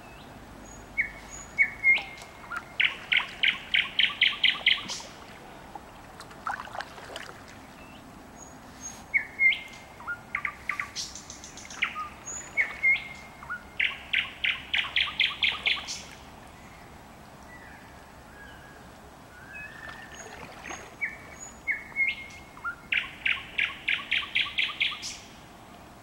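A songbird singing at night in three phrases, each opening with a few separate whistled notes and building into a fast run of repeated notes, about four or five a second, that stops abruptly.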